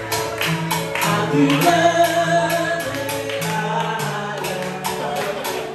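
Live band music: singing over timbales, keyboard and a bass line, with a steady percussion beat.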